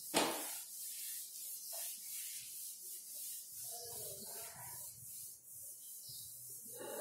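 Whiteboard eraser rubbing across the board in repeated wiping strokes, with one sharp knock just after the start.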